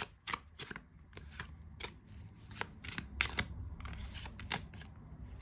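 Tarot cards being handled and shuffled, a run of irregular sharp flicks and taps of card stock.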